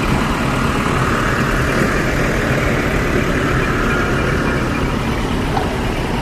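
Large truck engines running steadily.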